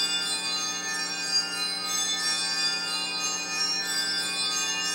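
Music: a sustained, unchanging chord of ringing, bell-like tones.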